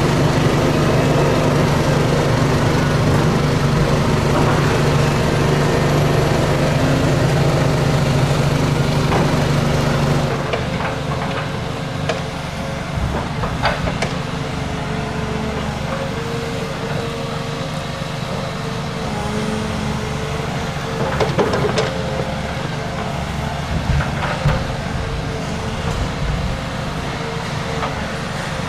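Heavy diesel engine of a Volvo excavator running steadily at demolition work, loud and close at first. About ten seconds in it becomes quieter and more distant, with a few sharp knocks and clanks of rubble being handled.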